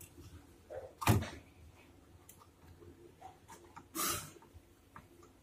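Handling noise from working refrigerator thermostat wires and connectors by hand: a sharp knock about a second in, a few small clicks, and a brief scraping rustle about four seconds in.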